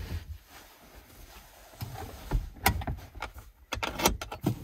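Bungee cord hooks being unhooked and rattling against the van's fittings: a run of sharp clicks and small knocks, thickest in the last couple of seconds.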